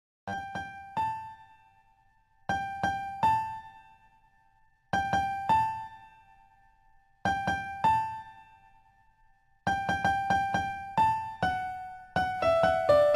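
Background music: a short tune of a few notes repeated about every two and a half seconds, turning into quicker, busier runs of notes near the end.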